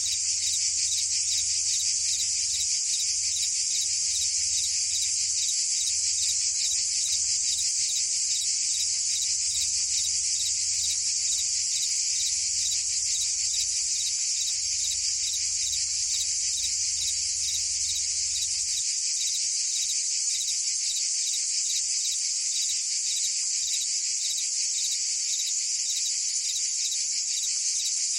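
A steady, dense chorus of cicadas and crickets: continuous high-pitched trilling with a fast, even pulse. A faint low hum underneath stops about two-thirds of the way through.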